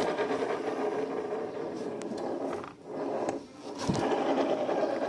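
Yamaha NMAX V2 scooter's CVT transmission running with a rough, grinding-type noise that comes only once the engine is hot. The noise drops away briefly twice about three seconds in, and there is a short low thump just before the four-second mark. The owner wonders whether something was fitted wrongly when the CVT was cleaned and new rollers put in.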